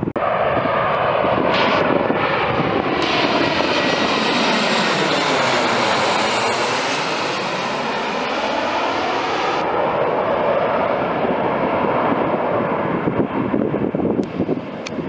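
Boeing 737 jet airliner passing low overhead on landing approach: a steady engine roar with a whooshing sweep in pitch that falls and rises again as it goes over, then fades a little. Wind buffets the microphone near the end.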